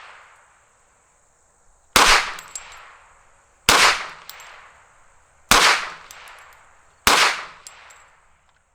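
Four shots from a 10mm Hi-Point carbine, spaced about a second and a half to two seconds apart. Each has a short ringing tail, followed by faint metallic clinks.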